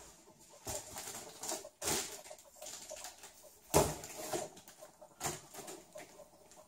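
Handling noise from a Mylar foil balloon: the foil crinkles and rustles as the balloon is taken off its filling tube. Several sharper crackles stand out, the loudest a little under four seconds in.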